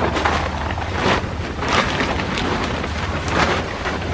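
Fabric of a carp-fishing bivvy rustling and flapping in a run of irregular swishes as it is handled and pulled into place, over a steady low rumble.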